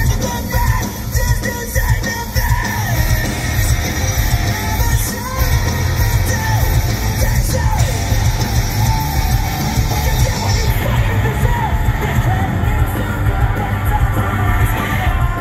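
Live rock band playing loud in a large hall: distorted electric guitars, bass and drums, with the singer shouting and singing into the microphone.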